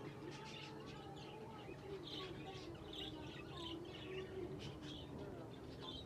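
A roomful of budgerigars (exhibition budgies) chattering, with many short chirps and warbles overlapping throughout.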